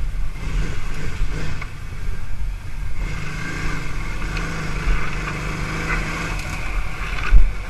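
ATV engine running as the quad pushes into thick brush, its note steadier and stronger from about three seconds in. A sharp thump near the end is the loudest moment.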